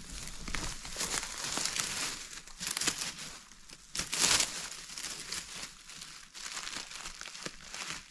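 Dry forest floor litter and undergrowth crunching and rustling underfoot and in the hands, in irregular crinkly bursts, the loudest about four seconds in.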